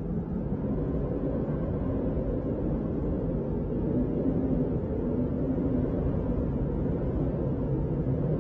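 Steady low rumbling ambient drone made from film sound samples, with a faint hum in it; it swells slightly in the first second, then holds.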